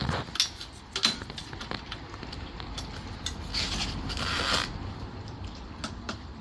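Parts of a folding e-bike being handled during assembly: scattered clicks and knocks, with about a second of scraping or rustling in the middle.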